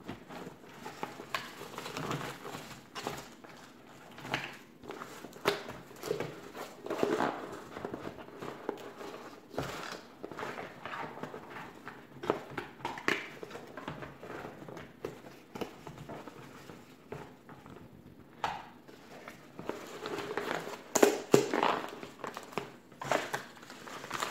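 Cardboard shipping box and packing material being handled: irregular rustling, crinkling and short knocks of cardboard and tape. The loudest crinkling comes near the end, when a padded paper mailer is handled.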